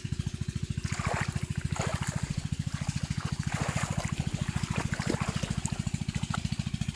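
Shallow water splashing and dripping a few times in short bursts as a boy's hands and fish move in it. Underneath is a small engine running steadily with a fast low throb of about fifteen pulses a second.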